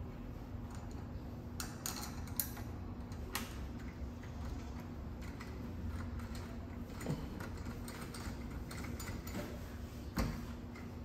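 Scattered light clicks and knocks from door lock hardware being handled, over a steady low hum. The strongest clicks come about two and a half seconds in and again near the end.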